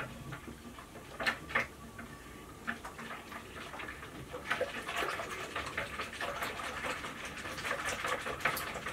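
Hand whisking of a chilled cream-based ice cream mixture with a balloon whisk in a mixing bowl: the liquid swishes and the whisk wires tick against the bowl. The strokes come faster and denser from about halfway through.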